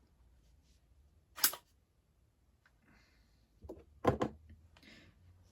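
Small 3D-printed plastic model parts being handled: a sharp knock about a second and a half in, a few clicks and knocks near the end, with light rustling between.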